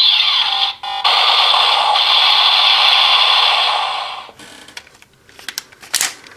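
DX Attache Shotgun toy's electronic finisher sound effect playing loudly through its small built-in speaker: a noisy effect that drops out briefly under a second in, resumes, and fades out after about four seconds. A few sharp clicks follow near the end.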